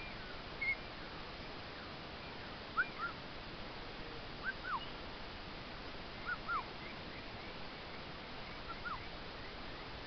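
Orange-winged amazon parrot giving short whistled calls, each a quick rise and fall in pitch, mostly in pairs about every two seconds.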